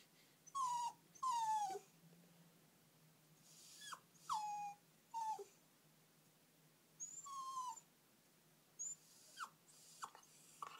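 Jack Russell Terrier puppy whimpering: a string of about eight short, faint, high whines, several sliding down in pitch, with pauses between them. This is separation distress at its owners having just left.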